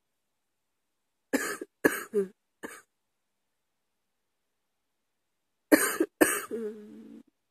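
A woman coughing in two fits: three or four quick coughs starting about a second and a half in, then after a pause two more coughs that trail into a short voiced sound in her throat.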